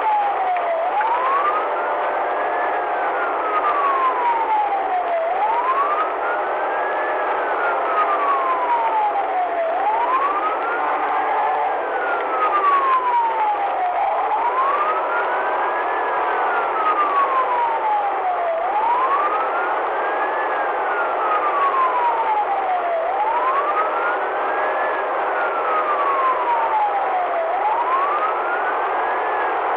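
Police car siren on wail, its pitch rising and then falling more slowly, about one full cycle every four and a half seconds. Steady road and engine noise runs underneath.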